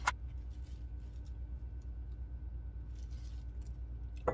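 Steady low hum of room noise with a faint thin whine above it, broken by a sharp click just after the start and another near the end.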